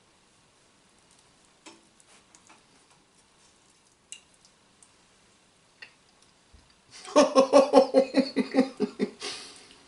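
Faint clinks of a fork and server against the pie tin and a ceramic plate, then a man's long pulsing 'mmm' of enjoyment as he tastes the pie, ending in a breath out.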